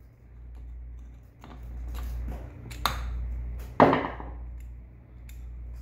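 Scattered clicks and knocks from handling a washing-machine motor's start capacitor: the screwdriver used to discharge it, then its push-on wire connectors coming off. The sharpest knock comes a little before four seconds in.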